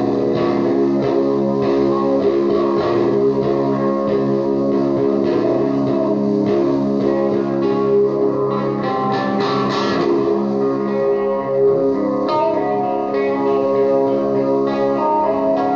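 Electric guitar played through an Orange amplifier: picked and strummed notes over a looped bed of held, droning tones, in a psychedelic noise style.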